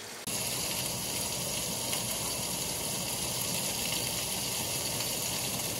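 Over-the-range microwave's vent fan running steadily, with chicken sizzling in a cast-iron skillet; the sound cuts in suddenly just after the start.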